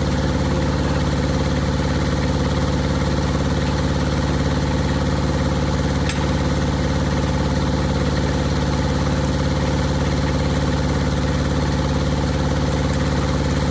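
An engine idling steadily at an even speed, with a single faint click about six seconds in.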